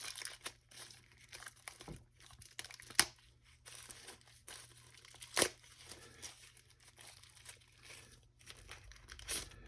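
Packaging being handled and torn open: a run of crinkling and crackling with scattered sharp clicks, the loudest about three seconds in and again about five and a half seconds in.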